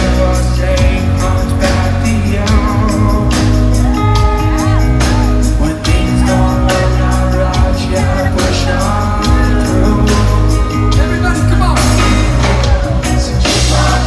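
Live reggae band playing with a male lead vocal: heavy bass, drums, electric guitar and keyboards under the singing.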